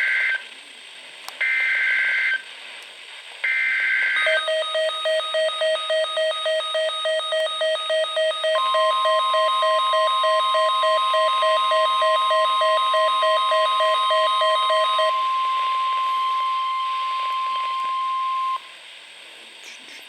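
NOAA Weather Radio emergency alert: three short bursts of SAME data-header screech, then a fast pulsing electronic beep at about three beeps a second. Partway through, the steady 1050 Hz weather radio warning alarm tone joins in, holds for about ten seconds after the beeping stops, and cuts off suddenly, leaving faint radio static.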